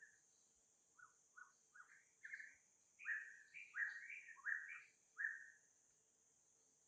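Baby monkey giving a string of about a dozen short, squealing cries, starting soft and growing louder, over a steady high insect hiss.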